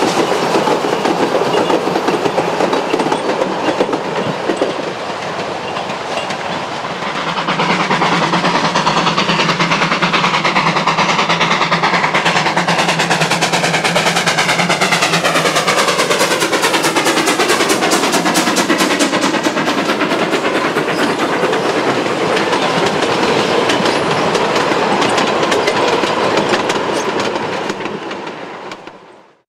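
Narrow-gauge steam train running past, with a steady rapid clicking from the wheels. The sound fades away near the end.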